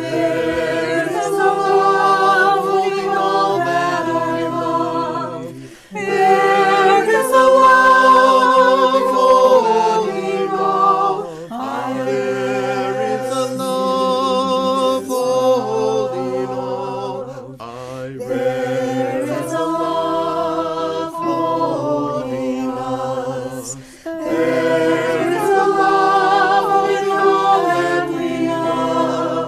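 Virtual choir of men's and women's voices, recorded separately at home and mixed together, singing a hymn in harmony. The voices sing in phrases of a few seconds, with short breaks between lines.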